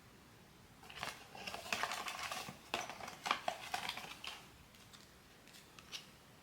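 Blind-box toy packaging being handled and opened: about three seconds of dense rustling and crinkling with sharp clicks, then a couple of faint clicks.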